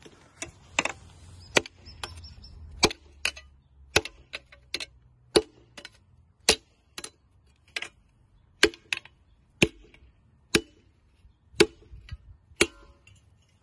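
Multifunction camping axe blade chopping into a wooden log again and again in a strength test of the edge: sharp strikes about once a second, some in quick pairs.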